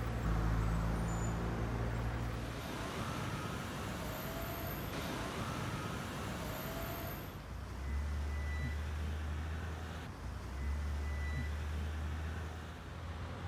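Street traffic: the low steady hum of car engines, with a broad rush of a passing car in the middle and two short rising squeaks about four and six seconds in.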